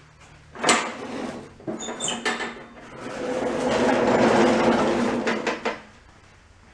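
A Toro walk-behind lawn mower pushed across a concrete floor: a knock about half a second in and a few clatters, then the wheels rolling and the deck rattling in a rumble that swells for a few seconds and stops.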